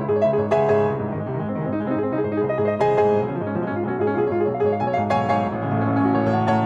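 Grand piano playing a busy run of notes, with a few strongly struck chords standing out.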